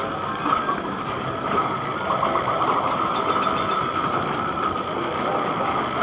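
Continuous clatter of many vintage electromechanical pinball machines in play: relays, score reels and chimes clicking and ringing over one another, with a steady ringing tone running through the din.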